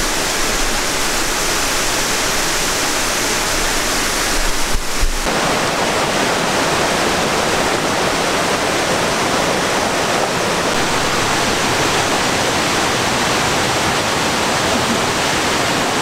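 Steady rushing of Kuang Si Falls, water pouring over its tiered cascades, with a slight change in tone about five seconds in.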